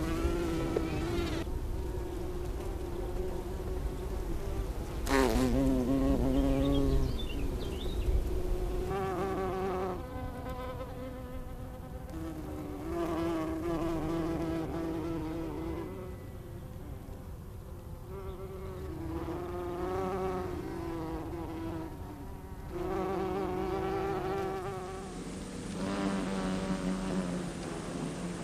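Bumblebees buzzing in flight, passing in and out in several separate passes with a wavering pitch; the loudest pass, about five seconds in, drops in pitch as it goes by.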